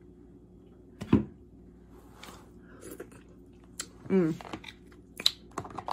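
Crab leg shells being cracked and picked at, with one sharp crack about a second in and smaller clicks, plus chewing; a short hummed vocal sound around four seconds in.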